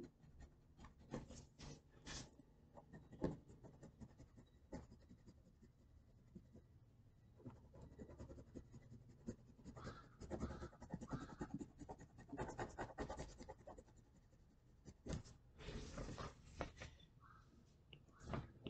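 Faint scratching of a pencil on paper as small overlapping curved strokes are laid down for skin texture. The strokes come in irregular bursts and are busiest in the second half.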